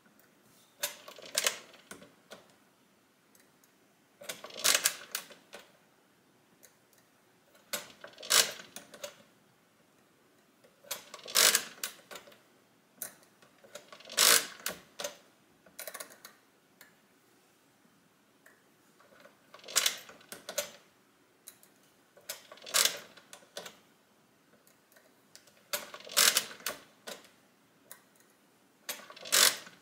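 Original Odhner pinwheel mechanical calculator being worked by hand: setting levers moved and the crank turned, each action a short run of sharp clicks and clatter. The runs come about every three seconds, with quiet between.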